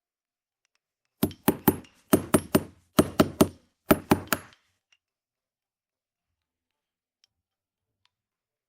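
A run of sharp knocks, about a dozen in four quick groups of three or four.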